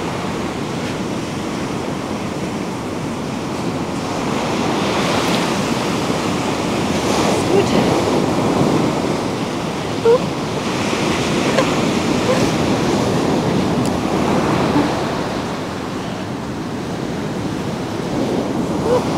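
Ocean surf breaking on a sandy beach: a steady rushing wash that swells and eases as the waves come in, with wind buffeting the microphone. A few brief short tones cut through, the sharpest about ten seconds in.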